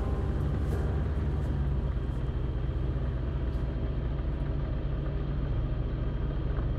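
A car engine running steadily at low speed, a deep, even rumble as the car creeps slowly forward.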